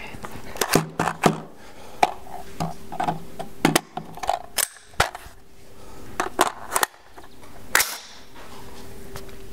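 Schmeisser AR-15 rifle firing a string of single shots a second or more apart, each a sharp crack, with lighter clicks and knocks between them.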